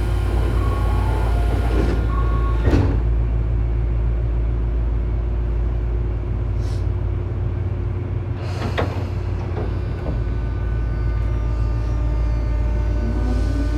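Tobu 9000 series electric train standing at a platform and starting off: a steady low hum, a thud about three seconds in, a hiss of air near nine seconds in as the brakes release, then near the end the armature-chopper control starting its rising whine as the motors take power. This car's chopper is known for its abnormal noise.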